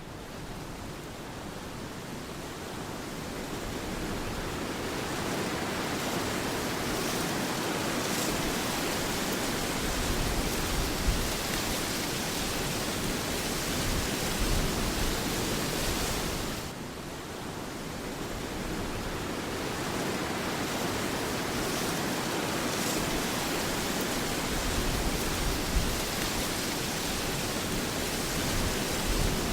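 Steady, even rushing noise with no distinct tones, dipping briefly about seventeen seconds in.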